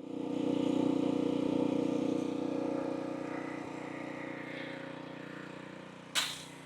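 Simpson ALH3425 pressure washer's Honda GX engine starting up and running steadily. A short, sharp hiss comes near the end.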